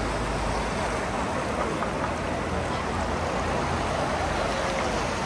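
Steady noisy background ambience with faint, indistinct voices in it.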